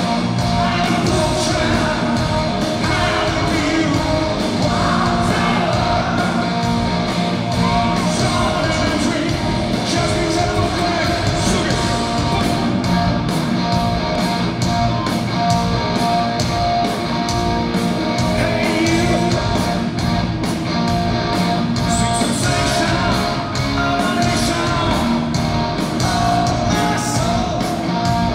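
Rock band playing live in a large hall: electric guitars, bass guitar and drums, with a male lead vocal singing over them.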